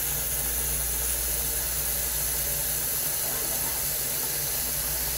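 Hot water from a tap running steadily into a filling sink: an even, unbroken hiss.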